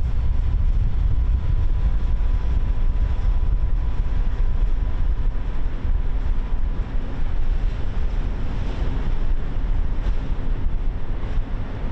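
Wind rumbling on an outdoor microphone, a steady low buffeting noise, with a faint steady high tone underneath.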